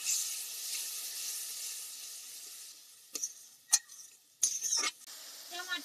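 Onion and tomato masala sizzling in hot mustard oil in a metal kadai just after a little water has gone in, the sizzle dying away over about three seconds. Then a metal spatula scrapes and stirs in the pan a few times.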